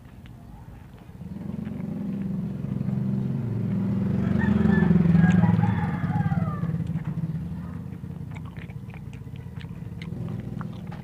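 A motor vehicle passing close by: its engine rumble swells to a peak about five seconds in, drops in pitch as it goes past, and fades. In the last few seconds, short crisp clicks of teeth biting off corn kernels from a cob.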